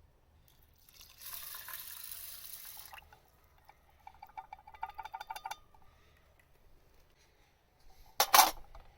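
Water running for about two seconds, then gurgling in quick, regular pulses as it fills or pours, and a short loud splash or clatter near the end.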